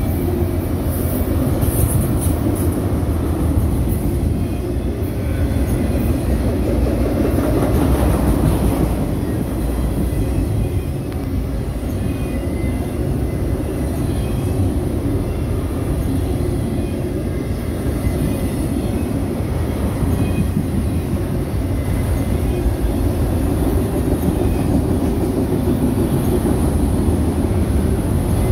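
Freight train of autorack cars rolling steadily past: a continuous loud rumble of steel wheels on the rails.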